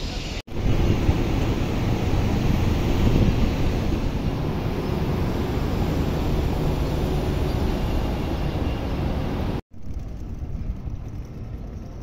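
Outdoor city street noise: a steady rumble of car traffic, with no distinct single event. It cuts out for an instant about half a second in and again near the end, and is lighter after the second break.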